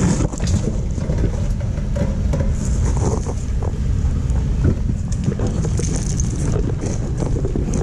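Off-road vehicle driving over a rough dirt trail: a steady low rumble with scattered knocks, and wind buffeting the microphone.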